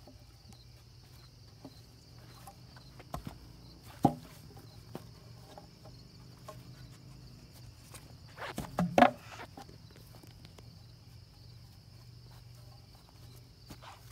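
Weathered wooden boards being wrenched loose from a broken table and thrown, with a few sharp wooden knocks and cracks, the loudest about four and nine seconds in. A steady high chirring of insects runs underneath.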